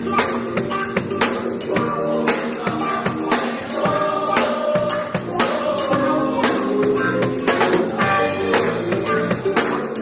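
Church worship band playing an upbeat gospel song live, with drums, guitar and tambourine under singing voices.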